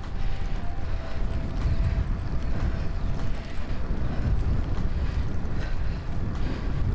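Wind buffeting the microphone of a bike-mounted camera on a road bike riding at speed: a low rumble that keeps rising and falling.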